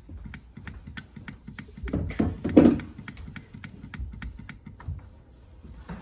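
Rapid clicking of a RiteTemp wall thermostat's button, pressed about three times a second as the cooling setpoint is stepped down to call for cooling. There is a brief louder sound about two seconds in.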